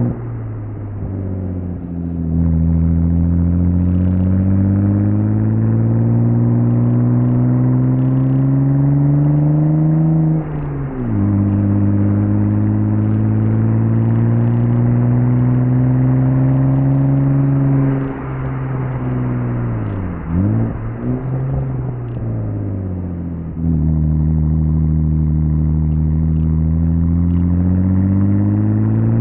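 1998 Audi S4 B5's 2.7-litre twin-turbo V6, Stage 1 tuned, pulling up through the revs, with an upshift about ten seconds in where the pitch drops sharply before climbing again. Near the middle the throttle comes off, with brief rev blips on a downshift, and from about two-thirds in it pulls and climbs again.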